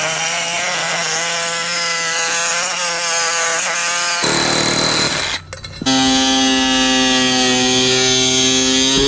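Cordless reciprocating saw cutting aluminum tubing, its motor whining with a pitch that wavers under load. About four seconds in it gives way to an angle grinder running with a steady whine over aluminum angle.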